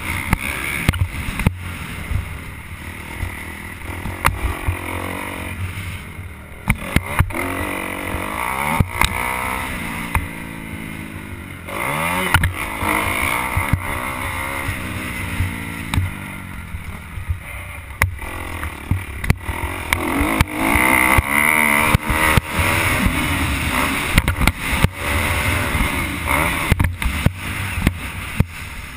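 Motocross bike engine being ridden hard, its pitch rising and falling repeatedly as the throttle is opened and shut, with many sharp knocks and rattles as the bike hits the bumps and ruts of the dirt track.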